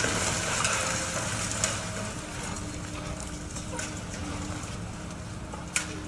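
High-reach demolition excavator breaking up a concrete building's upper floors: a steady machine hum under continuous crackling and clattering of crumbling, falling concrete, busiest in the first couple of seconds, with one sharp crack near the end.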